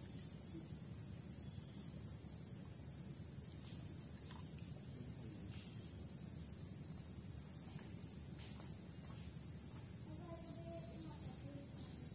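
Steady high-pitched insect chorus, continuous and unchanging, with faint voices of people talking about ten seconds in.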